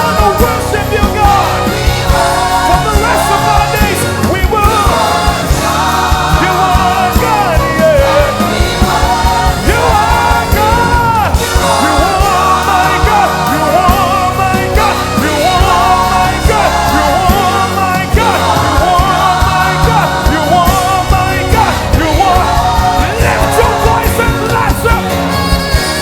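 Live gospel worship music: a band with bass and drums plays under several voices singing and vocalizing freely.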